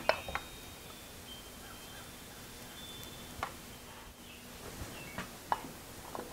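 A few light, sharp clicks and knocks of cast-iron parts being handled on a milling machine head as a gear cover is worked loose by hand, spaced seconds apart over a quiet background.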